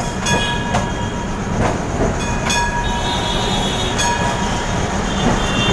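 Tram running on its rails through a street junction, heard from inside the car: a steady low rumble with several sharp knocks as the wheels pass over rail joints and crossings, and thin high-pitched wheel squeal that comes and goes.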